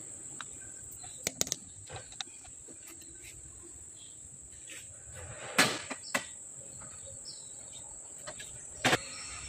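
A few sharp metal clicks and knocks as a crane clutch shaft and its large gear are handled by hand, the loudest a little past halfway and near the end, over a steady high-pitched whine.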